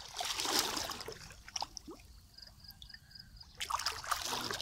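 Shallow water sloshing and trickling as a person wades through it and lifts a dripping net bag. The water sound drops away for a couple of seconds in the middle, when only a faint high repeated peeping is heard, then comes back near the end.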